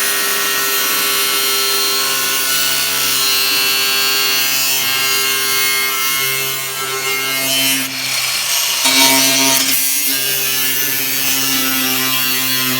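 A power tool running hard, most likely cutting, with a steady whine that shifts pitch a few times as the load changes.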